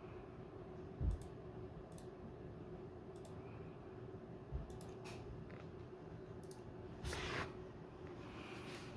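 Scattered small clicks, two low thumps and a brief scraping rustle about seven seconds in, from hands handling computer parts, over a faint steady hum.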